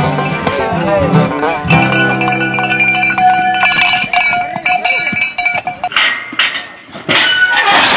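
Background music led by plucked strings, in a country style. It drops out about six seconds in, and a couple of short noisy sounds follow.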